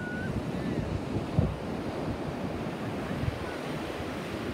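Ocean surf washing onto a sandy beach, with wind buffeting the microphone in irregular gusts, one stronger gust about a second and a half in.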